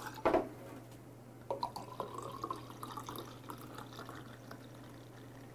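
Soju tipped from a small glass onto ice with a brief splash, then beer poured from a glass bottle into the glass, glugging and fizzing as it foams, the filling note rising slightly as the glass fills.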